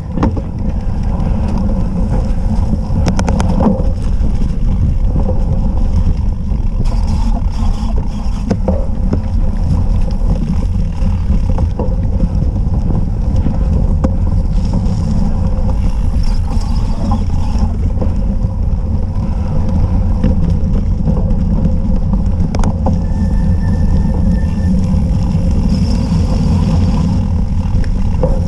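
Steady low rumble and wind buffeting on an action camera's microphone as it rides on a cyclocross bike over grass and dirt, with scattered clicks and rattles from the bike.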